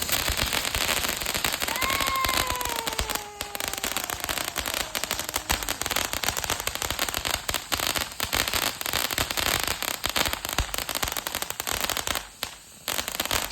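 Fireworks going off in rapid succession: dense crackling and popping, with a whistle that rises briefly and then slowly falls, starting about two seconds in. There is a short lull near the end.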